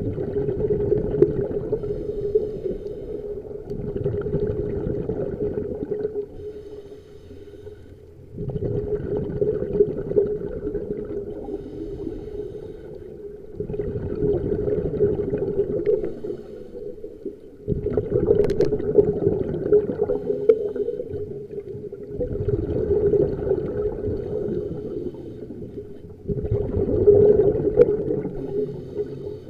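Scuba diver breathing underwater through a regulator: bubbly gurgling surges of exhaled air about every four seconds, with quieter gaps between breaths.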